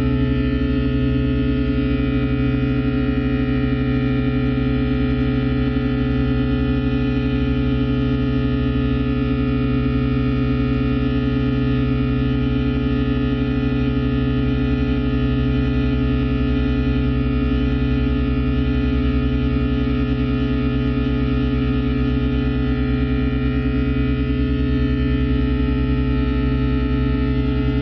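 Live improvised drone music from an electric guitar with midi-controller and a large rubber balloon played by hand: many sustained tones held together in a dense, steady drone, with a fast pulsing beat between the pitches.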